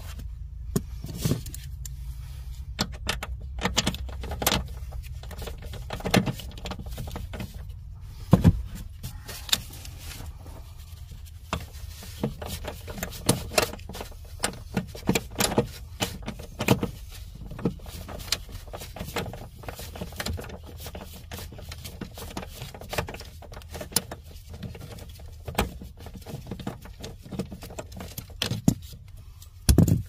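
Irregular metallic clicks and clinks of hand tools working on the clutch pedal bracket bolts under a car's dashboard, over a low steady rumble.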